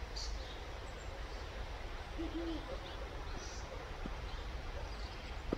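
Steady low wind rumble on the microphone, with one short, low, flat hoot from a bird about two seconds in and a few faint high chirps.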